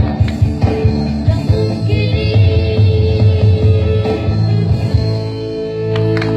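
Music: a song with band accompaniment, a steady bass line and a singing voice.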